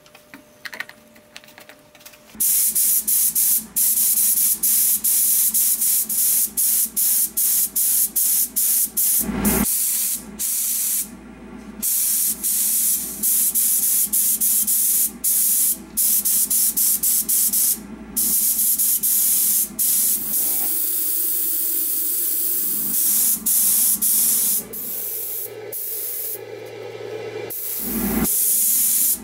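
Gravity-feed compressed-air spray gun spraying black lacquer, a loud hiss in many short bursts as the trigger is pulled and released, with a few longer pauses. A low thump about a third of the way in.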